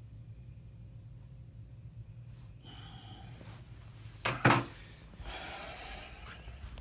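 A person's breath close to the microphone over a low room hum: a short, sharp double burst about four seconds in is the loudest sound, followed by about a second of breathy exhale.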